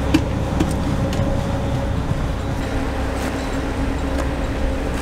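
A 69-foot motor yacht's diesel engines running steadily at low manoeuvring speed, a constant low rumble with a steady hum, with a few faint knocks.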